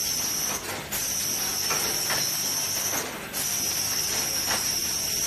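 Cellophane overwrapping machine running: a steady high-pitched hiss that cuts out briefly about every two and a half seconds, with faint clicks of the mechanism in between.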